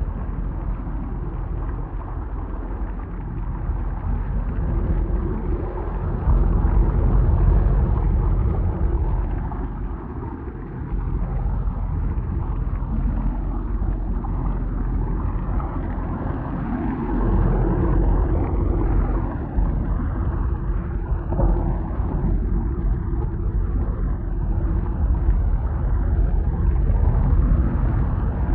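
Simulated thunderstorm: a continuous deep rumble of rolling thunder that swells louder about a fifth of the way in, again past the middle, and near the end.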